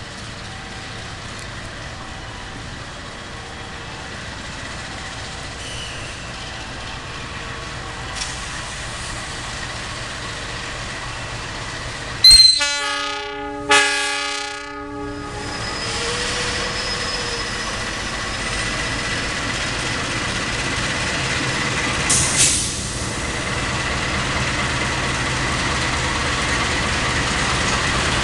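Diesel locomotive of the Pangrango passenger train sounding its horn once for about two and a half seconds near the middle, the blast swelling twice. Around it runs the train's steady rumble, slowly getting louder as it pulls out of the station.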